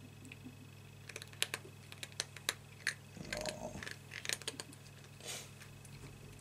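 Cat crunching dry treats: an irregular run of sharp, crisp crunches, with a brief rustle about three seconds in.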